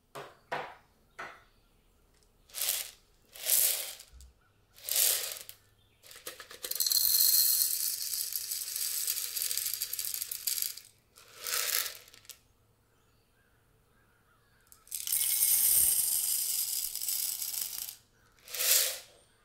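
Dried popcorn kernels poured from a measuring cup into an empty pot, rattling against it in a long stretch about six seconds in, with another long rattling stretch about fifteen seconds in. Short clinks and knocks come between them.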